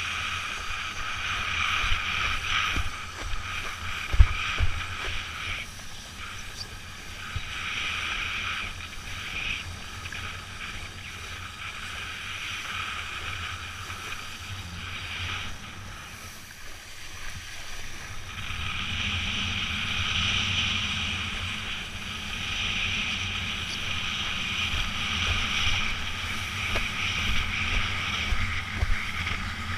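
Wind buffeting the microphone over rushing, splashing water: a steady low rumble with hissing that swells and fades every few seconds.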